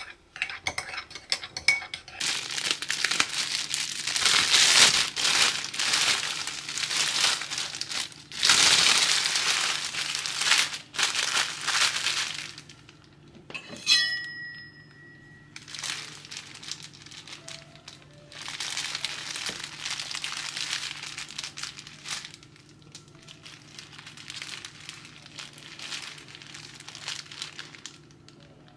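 Plastic bread bag crinkling and rustling in long stretches as it is handled. About halfway through there is a single ringing clink of a metal spoon against a ceramic mug.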